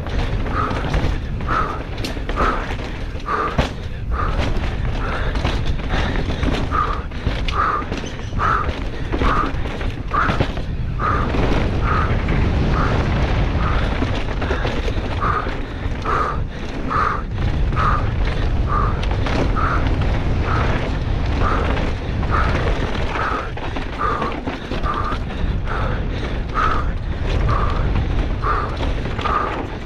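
Downhill mountain bike running fast over a rough dirt trail: steady rumble of tyres and suspension with wind on the helmet camera, and frequent sharp clicks and rattles from the bike over bumps. A short mid-pitched pulse repeats a little faster than once a second throughout.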